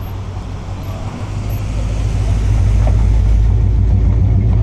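A car engine idling, a deep steady rumble that grows louder about a second and a half in.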